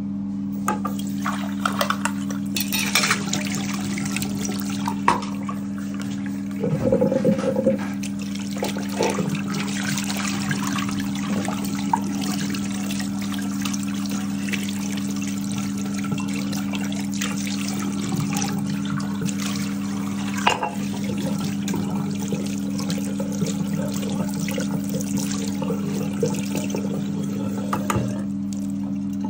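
Coffee machine brewing: a steady pump hum with liquid running, and small clicks and knocks throughout.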